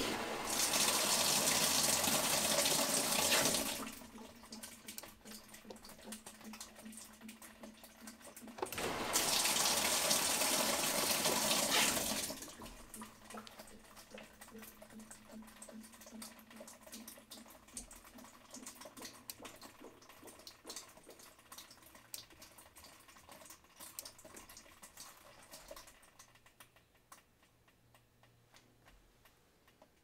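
Water rushing through a Whirlpool top-load washer's inlet valve into the tub as the valve is switched on in the manual parts test mode, beginning with the cold water valve test. It comes in two strong spells, the first about four seconds long and the second about three and a half seconds, each cutting off sharply. Between and after them there is a fainter trickle with light ticks.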